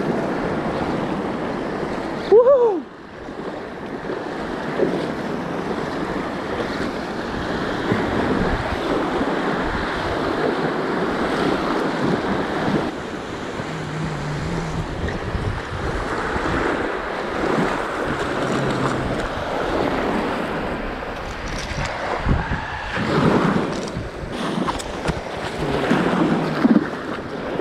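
Shallow ocean surf breaking and washing over the beach, with wind buffeting the microphone. A short loud sound with a bending pitch cuts in about two seconds in.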